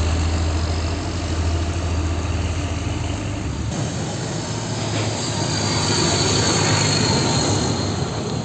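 Diesel engine of a loaded tandem-axle dump truck running with a deep steady drone as it moves past. After a sudden change, a Hino dump truck approaches and passes close by, its engine and tyre noise swelling and then easing.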